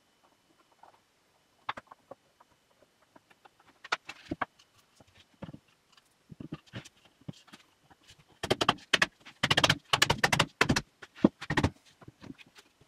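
Spruce boards being handled and knocked together on a workbench: scattered light taps and clunks, then a quick run of louder wooden knocks about eight seconds in as a side panel is fitted onto the shelf board's dowel joints.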